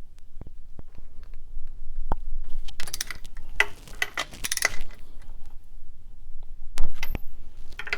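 Torque wrench ratcheting as it tightens the manifold bolts to 45 foot-pounds, three short rasping strokes about three to five seconds in, with a few sharp metallic clicks and clinks before and after.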